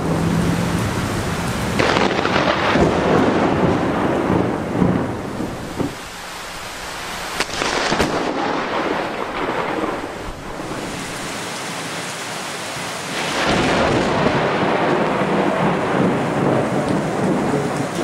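Thunder from close lightning strikes over steady heavy rain. There are sudden peals about 2 s in and a pair of sharp cracks about 7.5 s in, and another loud peal builds near 13 s.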